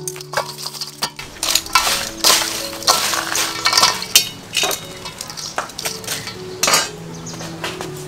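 Metal tongs clattering and scraping in a stainless steel bowl of live crabs and crushed ice as they are stirred, a run of irregular clinks and rattles.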